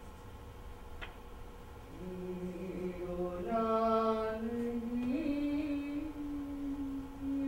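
A woman's voice chanting slow, long-held notes. After about two seconds of faint sound it takes up a low note, steps up to a brighter, fuller note and then slides higher and holds.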